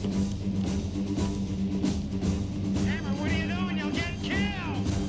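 Rock music score with a steady repeating bass line and drums; high sliding notes come in about three seconds in.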